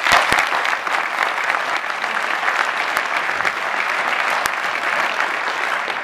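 Audience applauding, loud and steady.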